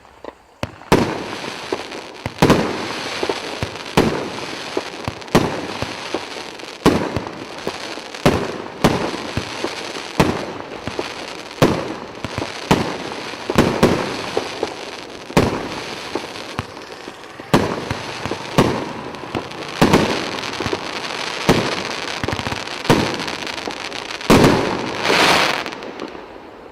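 A 25-shot, 1.25-inch consumer fireworks battery (cake) firing its shots one after another, about one a second. Each shot is a sharp bang, and crackling effects fill the gaps between shots. A louder closing volley comes near the end.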